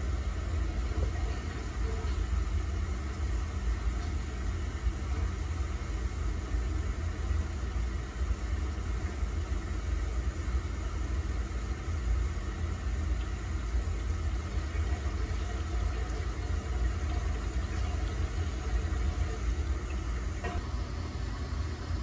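Radiant floor heating system pushing water through red PEX tubing loops at the manifold while air is purged from the lines. It makes a steady low rumble and hum.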